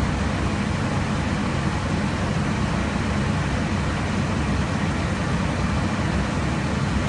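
Steady, deep rushing noise of airflow and engines heard inside an aircraft in cruise at high altitude.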